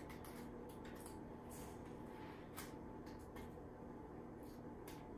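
Faint soft rustles and light ticks of crumble topping being pinched and sprinkled by hand onto unbaked muffins, over a low steady room hum.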